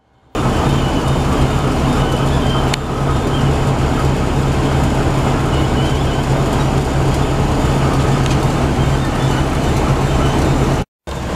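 Truck engine running steadily with a low drone, heard from inside the cab.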